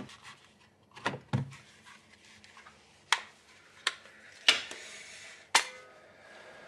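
A series of separate sharp knocks and clicks, about seven over several seconds, with short gaps between them.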